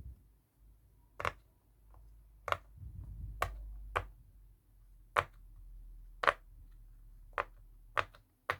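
Silicone pop-it (poppet) fidget toy being pressed bubble by bubble, giving single sharp pops about once a second, nine or so in all.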